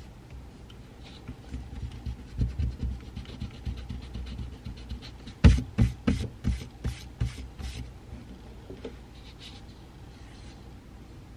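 Pencil writing on paper on a desk: quick scratchy strokes with soft knocks through the desk. About halfway through comes a sharp stroke, then a run of firmer, evenly spaced strokes about three a second that die away near the end.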